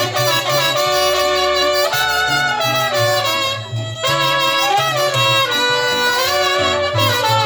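Live band's instrumental break in a Mexican song: trumpets play the melody in sustained notes over a bass line.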